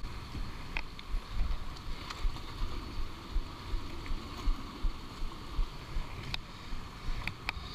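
Uneven low rumble of wind and handling noise on an action camera's microphone, with a few sharp clicks and taps as hands grip the limestone while climbing.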